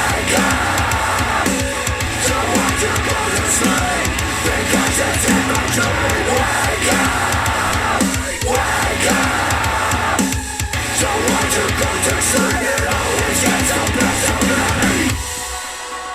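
Loud, dense music with a steady drum beat, played back through a JBL Charge 4 portable Bluetooth speaker. The music thins out and drops in level near the end.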